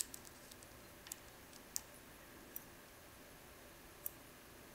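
Faint, sparse metallic clicks from a lock pick working the pins of an Abus C95 euro cylinder, about five at uneven intervals: the small clicks of pins, including serrated ones, setting at the shear line during single-pin picking.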